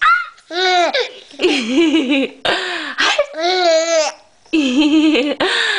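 A woman laughing together with a baby's babbling, in a string of pitched bursts about a second each with short breaks between.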